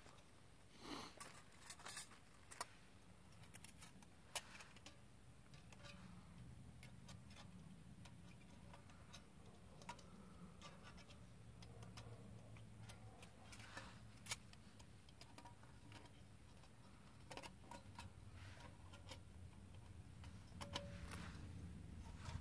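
Quiet, scattered light metallic clicks and taps from the panels of a small folding metal wood-burning stove being fitted together by hand, over a faint low rumble.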